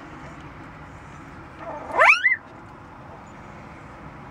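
A young puppy gives one short, high cry that sweeps quickly upward in pitch, a small howl, about two seconds in, over a steady low background hiss.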